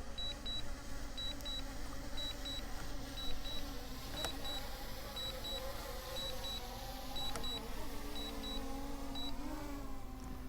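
DJI Mini 3 Pro drone descending to land, its propellers humming and wavering in pitch. A short high double beep repeats about once a second and stops near the end.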